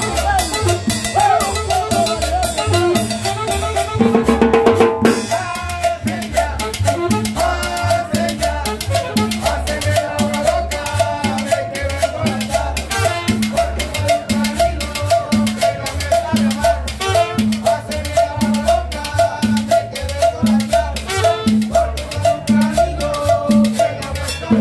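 A live tropical dance band playing in Latin style: drum kit and cymbals keep a steady, even beat under a bass line, with a saxophone among the instruments.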